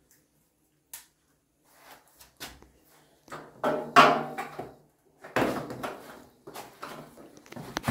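Knocks, clatters and scrapes of hands working inside a steel battery rack cabinet, fitting cables to Pylontech US3000C battery modules. A few faint clicks at first; the loudest clatter comes about four seconds in.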